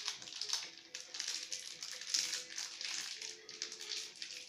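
Plastic candy wrapper crinkling in the hands as it is opened, a dense crackle of small clicks, loudest about two seconds in. Faint music from a television plays underneath.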